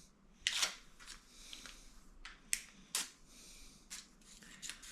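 Hands handling a toilet pan's flexible sealing ring and its backing paper: a few short crinkles and light clicks spread over the seconds.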